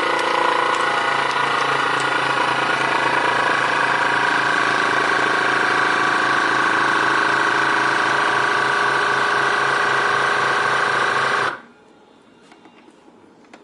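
Crenova VS200S vacuum sealer's pump motor running steadily with a fast low pulsing, drawing the air out of the bag, then stopping abruptly about two seconds before the end. A few faint ticks follow.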